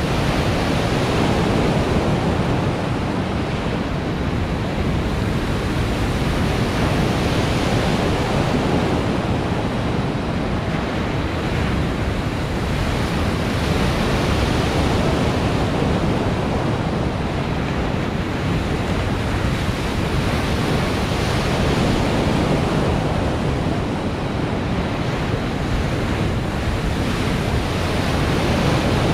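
Artificial wave pool water breaking and washing: a steady rush of water noise that swells and eases, mixed with wind on the microphone.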